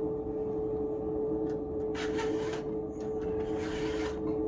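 Flat file rasping across the cutter teeth of a full-chisel chainsaw chain, two strokes about two and three and a half seconds in, over a steady hum.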